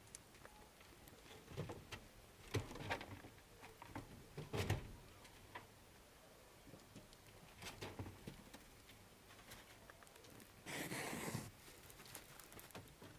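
Rabbits moving about a wire-and-slat hutch floor, with scattered light knocks and rustling among fresh greens, and a brief louder rustle close by about eleven seconds in.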